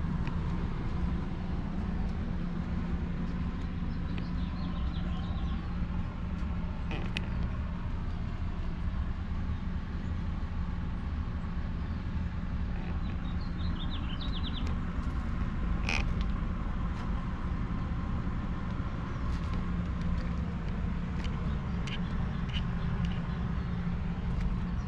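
Steady low outdoor rumble with a constant hum, typical of distant traffic, carrying through a residential yard. Short runs of bird chirps come about four seconds in and again around thirteen to fourteen seconds, and there are a couple of sharp clicks.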